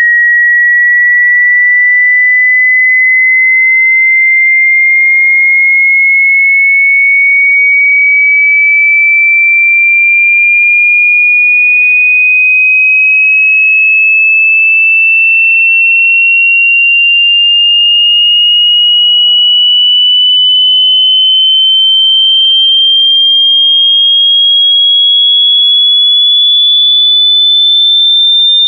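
A pure electronic sine tone at constant volume, gliding slowly and evenly upward in pitch from a mid-high whistle to a higher one, with nothing else: a hearing-test frequency sweep passing through the range where the ear hears loudest.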